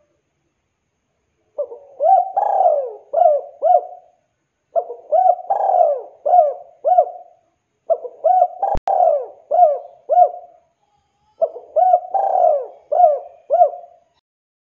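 Spotted dove (tekukur) cooing, four calls of several coos each, repeated about every three seconds. A single sharp click about two-thirds of the way through.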